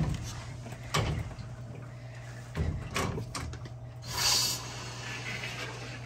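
Pliers clinking and scraping on a brass garden-hose fitting as it is tightened onto a metal Y splitter on a water valve: several sharp knocks, a second or so apart, then a short hiss about four seconds in, over a steady low hum.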